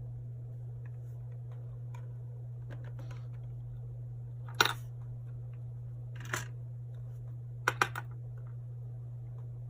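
A few light clicks and taps of small plastic kit parts being handled and set on the work table. There is a single sharp click about halfway through, a softer one shortly after, then three quick clicks close together. A steady low hum runs underneath.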